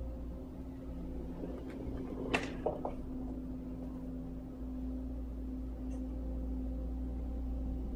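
Caterpillar 277 compact track loader's diesel engine running steadily, with a sharp clank about two and a half seconds in and a smaller one right after.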